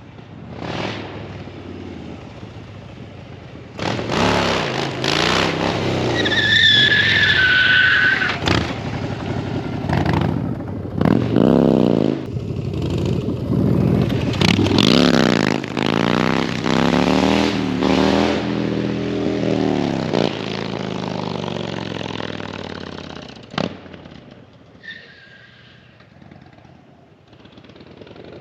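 Harley-Davidson V-twin motorcycle revving hard during a burnout, its engine pitch rising and falling again and again, with the rear tire squealing for a couple of seconds. Near the end the engine dies away.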